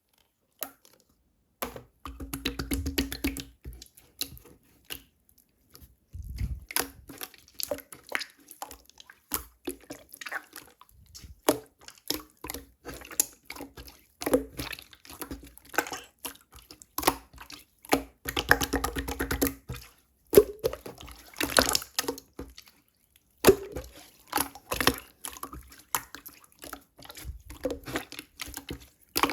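Thick, firm clear slime being squeezed, pressed and pulled by hand, making irregular wet clicks, pops and squelches with short denser stretches of squishing.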